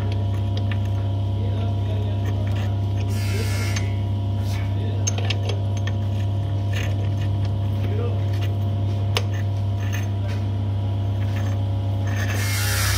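Light metallic clicks and clinks as the gears and splined shaft of a Honda Activa scooter's gearbox are handled and seated in the casing, with one sharper click about nine seconds in, over a steady low hum.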